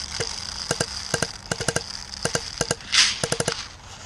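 Airsoft guns firing about a dozen sharp shots in quick pairs and short bursts, with a brief hiss about three seconds in.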